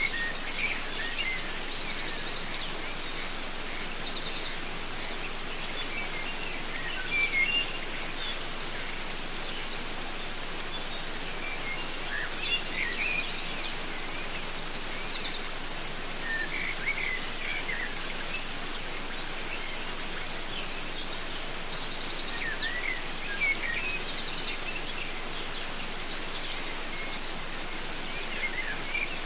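Steady rush of a waterfall, with several birds chirping and calling over it in recurring bursts.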